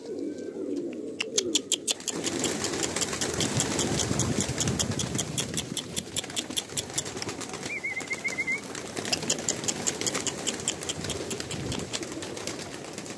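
A crowd of domestic pigeons beating and clapping their wings as they flutter in to feed, starting about a second in, with soft cooing underneath. The birds are hungry and jostling for grain.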